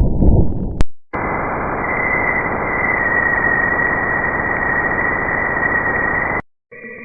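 Spacecraft radio emissions converted into audio: a dense static hiss with a steady high whistle running through it, which cuts off abruptly near the end. Before it, a lower crackling noise ends about a second in, and just before the end a new recording of steady eerie tones begins.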